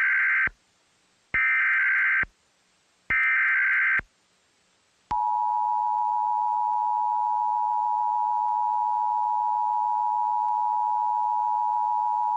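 Emergency Alert System tones: three short bursts of SAME header data, about a second each and a second apart, then the two-tone EAS attention signal (853 and 960 Hz together) starting about five seconds in and held steady.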